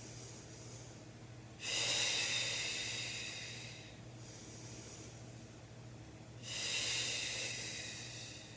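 A woman's hard exhales of exertion during an abdominal exercise: two long breaths out, each starting sharply and fading over about two seconds, with quieter breaths in between.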